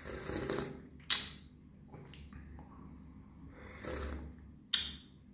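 Sips of hot tea slurped from a paper cup, with noisy breaths between them and a couple of sharp clicks, about a second in and near the end.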